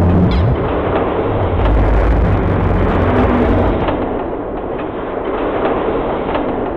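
Loud battle sound effects: a dense wash of noise over a deep rumble, explosion-like, easing off somewhat after about four seconds.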